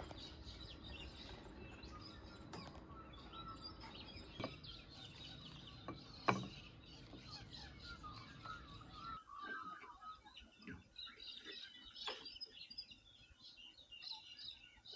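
Faint birds chirping and calling, many short high chirps that grow busier in the second half. A few knocks sound in the first half, the sharpest about six seconds in.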